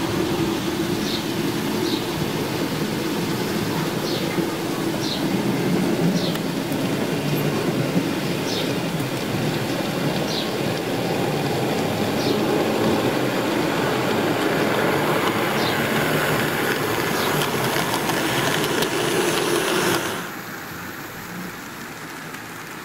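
OO gauge model train running on garden track: a steady motor hum and wheel rumble with scattered clicks, which stops abruptly near the end.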